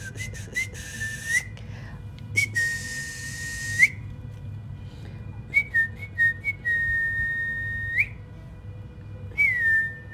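A person whistling at one high, steady pitch, calling a dog: short chirps followed by a long held note, about four times over, each long note ending with a quick upward flick.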